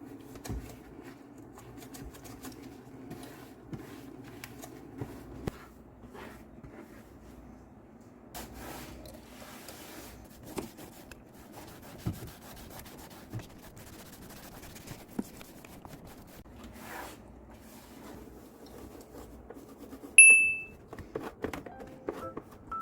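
Cloth rubbing and wiping over a hard surface, with scattered light knocks and clicks. About twenty seconds in comes a single short, high electronic beep, the loudest sound.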